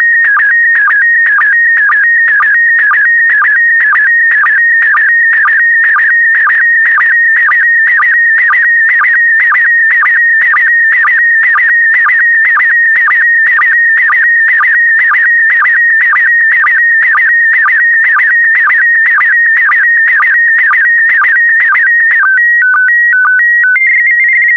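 Slow-scan TV picture signal in PD120 mode: a loud, steady electronic tone that wavers as it scans the image. It drops briefly in pitch about twice a second, once for each pair of scan lines. About 22 seconds in, the image scan ends and gives way to a few alternating two-pitch beeps, then a steady higher tone that cuts off suddenly as the transmission finishes.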